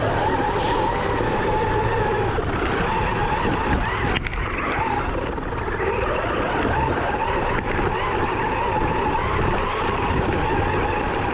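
ARRMA Talion 6S RC car running, its electric motor whining with a pitch that wavers up and down as the throttle changes, over a steady rough noise.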